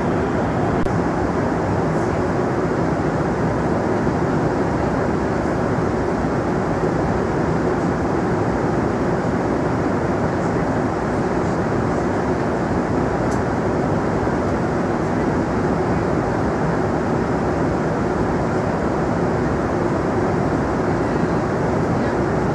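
Steady cabin noise of a Boeing 747-400 in cruise at about 11,300 m: an unchanging rush of airflow and engine noise as heard inside the upper-deck cabin, with a few faint clicks.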